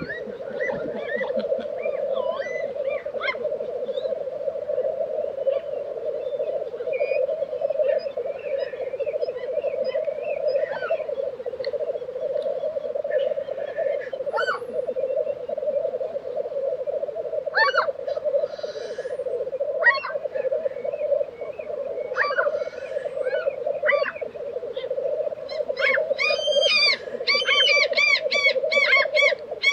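Black grouse lek: the continuous rolling, bubbling call of displaying black grouse cocks, with a couple of short hisses as the cocks challenge each other. Other birds call over the top, and near the end another bird gives a rapid run of repeated arching calls.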